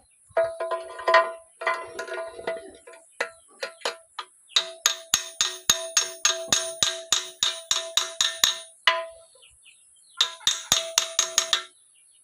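Hammer blows on a metal gearbox part, each ringing with the same clear tone. The taps are irregular at first, then come in a steady run of about four strikes a second, and after a short pause a quicker burst follows near the end.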